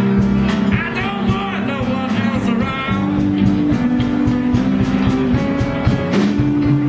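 Live blues band playing on electric guitars, bass guitar, keyboards and drums. About a second in, a lead line bends up and down for a couple of seconds over the steady band.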